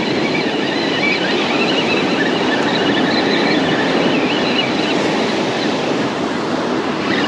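Steady rush of breaking surf and wind, with a faint wavering squeal on top as a spinning reel is cranked to bring in a light fish.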